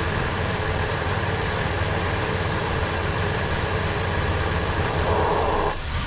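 Buick Rendezvous V6 engine idling with a misfire felt on all six cylinders, which the mechanic suspects is the engine running rich and flooding. A brief louder rush of noise joins in about five seconds in and stops abruptly.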